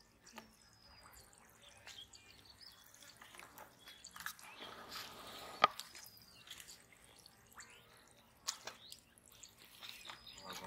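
Quiet, irregular small water splashes and drips, with one sharp click about halfway through.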